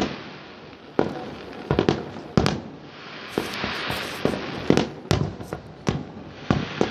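Fireworks going off: many sharp bangs at irregular intervals, some close and loud, over a steady hiss and crackle of more distant fireworks, with a denser stretch of crackling about halfway through.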